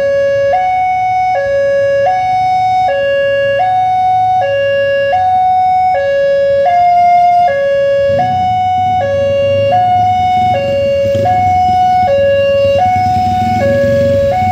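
Railway level-crossing warning alarm sounding from the crossing's horn loudspeaker: a steady two-tone electronic chime, alternating about every three-quarters of a second, signalling that a train is approaching. A low rumble builds underneath from about eight seconds in.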